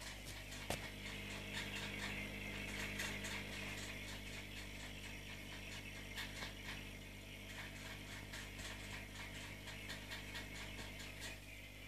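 Aquarium aeration bubbling: rapid, irregular clicking and crackling from a stream of air bubbles in the tank, over a steady low hum from the aquarium pump.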